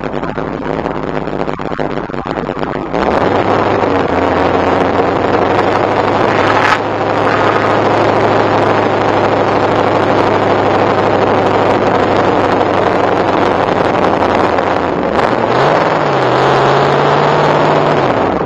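Shelby Cobra's V8 engine running under way in the open car, with wind noise over it. The engine gets louder about three seconds in, and near the end its pitch rises briefly before levelling off.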